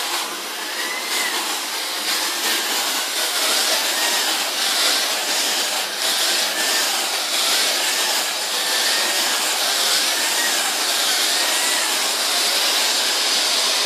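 Bosch GS-50 Pro Animal vacuum cleaner running steadily while vacuuming up spilled talcum powder with its Pro Animal floor head. A faint whine rises and falls about every one and a half seconds over the steady rush of the motor and airflow.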